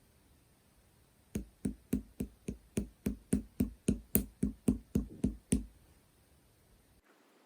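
A run of about sixteen quick, even taps, between three and four a second, each with a short low knock, then they stop.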